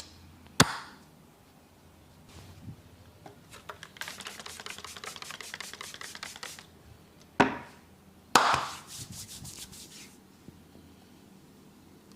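A barber's hands at work in a head massage: a sharp slap, then a fast even run of tapping strokes lasting a couple of seconds, two more sharp slaps, and a second shorter run of taps.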